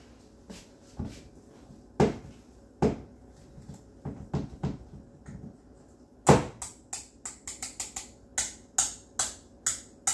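Metal whisk knocking against the side of a stainless steel mixing bowl as dumpling dough is beaten. A few separate knocks come first, then from about six seconds in a quick, even run of clicks, about three a second.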